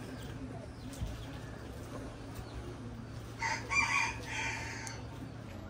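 A rooster crowing once, about three and a half seconds in, a call of a few linked parts lasting about a second, over a faint steady background hum.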